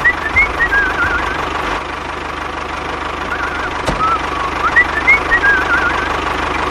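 Tractor engine running at idle with a steady low putter, with high warbling, chirping whistles over it that repeat as the same pattern about four seconds apart.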